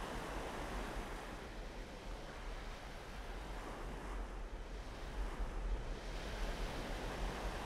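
Waves breaking and washing up a pebble shore, a steady surf hiss over a low wind rumble on the microphone; the wash fades a little in the middle and builds again near the end.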